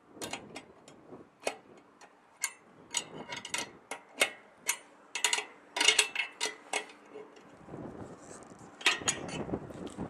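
A wrench tightening the bolts on a microwave dish antenna's pole mount: a string of irregular metallic clicks and ticks, then a softer rustling of handling over the last few seconds.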